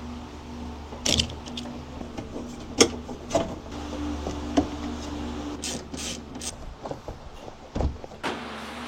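Sharp clicks and knocks of metal and plastic parts inside a car door as a door lock mechanism is worked on, over a steady low hum that drops away near the end.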